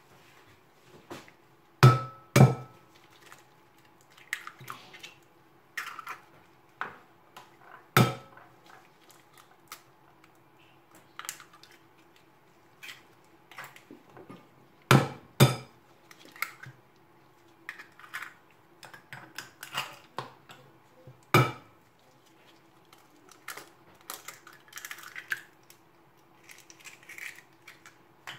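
Eggs being cracked on the rim of a glass mixing bowl: sharp knocks, some in quick pairs, with quieter clicks and rustles of shell between.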